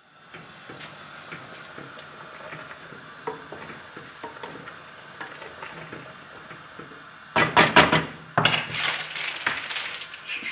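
Pasta being stirred with a wooden spoon in an aluminium pot of boiling water: a steady hiss with small scrapes and ticks, then a quick run of loud knocks of the spoon against the pot about seven seconds in. After the knocks comes a louder crackling hiss.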